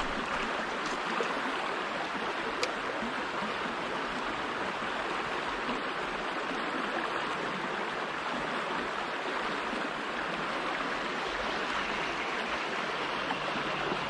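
Shallow creek water running and rippling steadily over rocks, an even rushing wash, with two faint ticks in the first few seconds.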